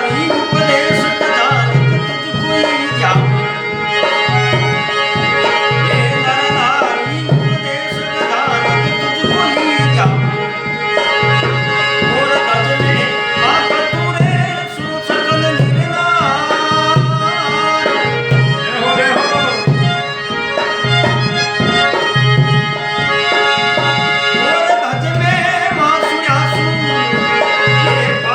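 Instrumental interlude of a bhajan: a harmonium playing the melody over a steady hand-drum beat, with a low drum stroke about once a second.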